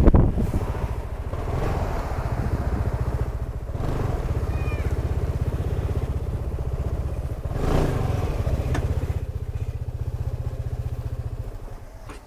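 Kymco Xciting 400i scooter's single-cylinder engine running steadily at low speed, with an even pulsing note. It dies down near the end.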